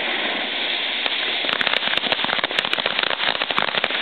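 Firework spraying with a steady hiss, breaking into rapid, irregular crackling pops about a second and a half in.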